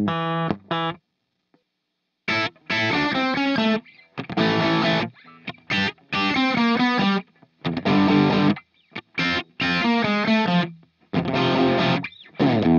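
Electric guitar through a pedalboard. A compressed phrase cuts off about a second in, and after a short silence a crunch tone (light overdrive) plays chords in short phrases with brief stops between them. The crunch sample is played through standard cables, for comparison with Custom Collie cables.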